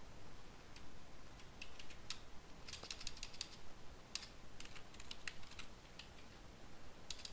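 Computer keyboard typing: faint, irregular key clicks as text is deleted and retyped.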